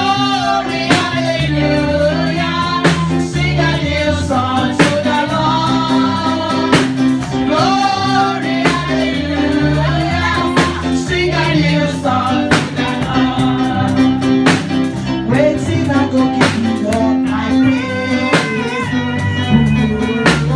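Music: a song with singing over guitar, bass and a steady drum beat.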